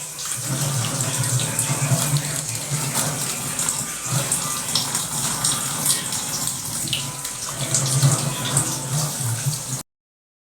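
Water running steadily from a tap, cut off abruptly by about a second of silence near the end.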